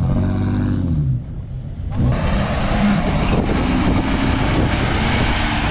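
Off-road 4x4 engines revving under load in soft sand. The engine note rises and falls over the first second, dips briefly, then gives way to a busier mix of engine and rushing noise.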